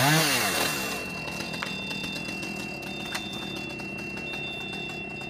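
Chainsaw revving up and down, stopping about a second in. Then a fire engine's motor running steadily at idle while its aerial ladder is raised, with a steady high whine and a faint high tone repeating about once a second.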